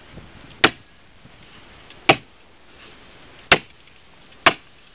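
Hammer tacker struck four times, driving staples through 20-mil polyethylene liner into a wooden 2x4. Each strike is a single sharp smack, the four coming about one to one and a half seconds apart.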